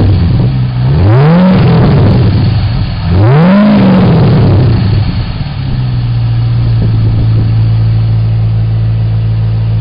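Holden Commodore's LS1 5.7-litre V8 through an aftermarket cat-back exhaust. It is blipped twice, the pitch rising and falling each time, about a second in and again about three seconds in, then settles to a steady idle.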